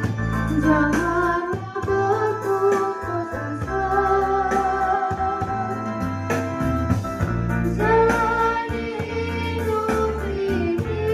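A mixed choir of men and women singing in rehearsal, over an accompaniment of long held low notes.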